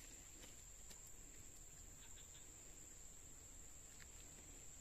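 Near silence with a faint, steady, high-pitched insect trill and a couple of faint ticks.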